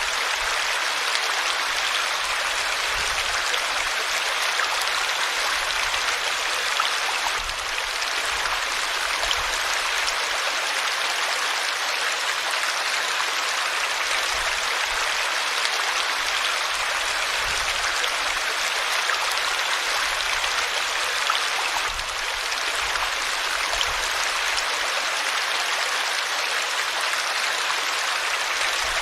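River water flowing steadily, a continuous even white-water noise with no breaks.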